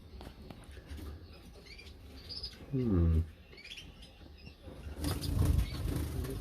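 Caged finches chirping now and then with short, high calls, a brief low falling vocal sound about three seconds in, and a louder rustling from about five seconds in.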